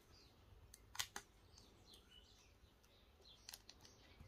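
Faint crinkling and clicking of clear vinyl transfer tape being peeled slowly off vinyl lettering on a resin plaque, with a couple of sharper clicks about a second in and another later.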